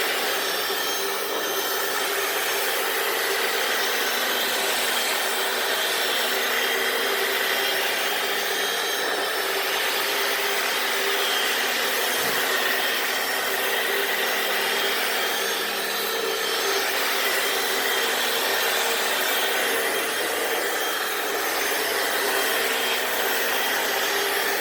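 Hoover FloorMate wet floor cleaner running steadily, its motor humming over a hiss as it scrubs and sucks up cleaning solution from a concrete garage floor.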